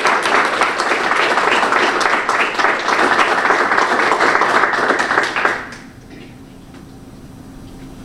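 Audience applause, many hands clapping, which dies away quickly a little under six seconds in, leaving a quiet room with a faint steady hum.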